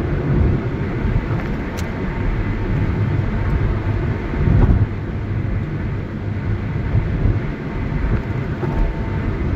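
Road noise heard inside a moving car's cabin: a steady low rumble of tyres on the highway, briefly louder about halfway through.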